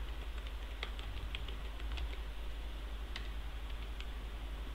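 Computer keyboard keystrokes, typed slowly as a handful of separate clicks, over a steady low hum.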